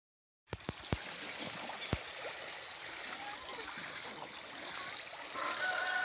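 Pond water splashing and rippling as a flock of domestic ducks and geese swim and paddle, with a few sharp knocks in the first two seconds. About five seconds in, a steady high-pitched tone starts over it.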